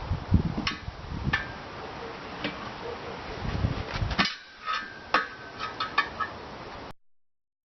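A new tire being worked onto a wire-spoke wheel rim: scattered knocks, clicks and low thumps of rubber and metal. The sound cuts off abruptly near the end.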